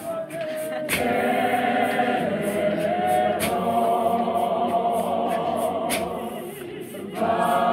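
A choir singing in harmony, holding long notes. The singing is softer for the first second, then full, and drops away briefly shortly before the end before coming back.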